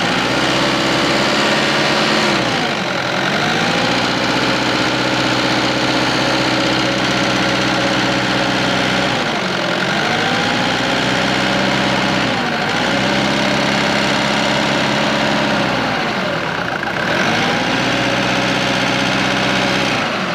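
Mitsubishi Pajero's 2.8 L four-cylinder diesel (4M40) running with a heavy knocking noise. Its speed sags and picks back up about four times. The mechanic blames a worn connecting rod knocking at the crank, along with blow-by ("back compression").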